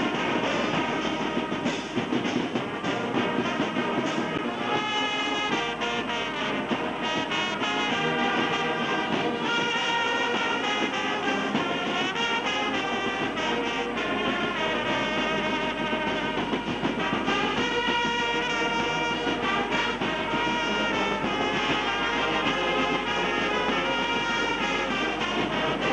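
Brass band playing, several brass instruments sounding held notes together without a break.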